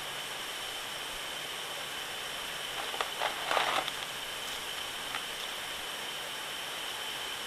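Steady background hiss with a thin, high, constant tone: room tone or recording noise. A brief cluster of faint rustling noises comes about three seconds in.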